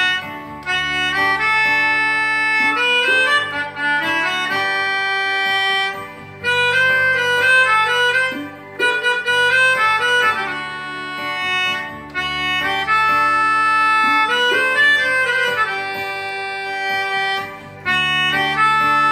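Melodica playing a song melody in long, reedy held notes, phrase after phrase, with brief breaths between phrases.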